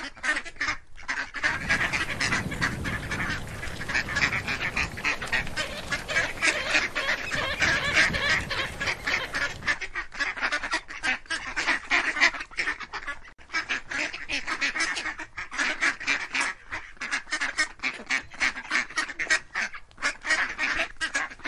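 A flock of ducks quacking rapidly and continuously, many calls overlapping. A low rumble lies under the calls from about two seconds in until about ten seconds in.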